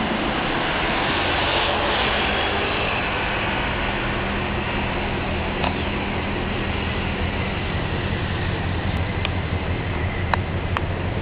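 Chevrolet Corvette C6's V8 engine running with a steady low rumble as the car moves past, recorded on a low-quality camera microphone.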